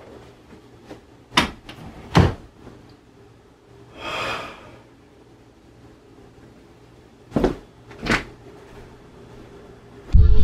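Four sharp knocks in two pairs, one pair about a second and a half in and the other near the end, with a short hissing rustle between them.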